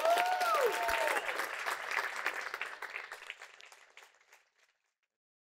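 A room of guests applauding and cheering, with a few whoops in the first second; the applause fades out about four seconds in.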